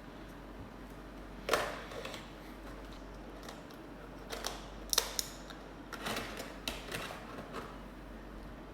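Hands unboxing an action figure: irregular sharp clicks and short plastic rustles, the loudest about a second and a half in, with clusters around five seconds and again from six to seven and a half seconds, over a low steady hum.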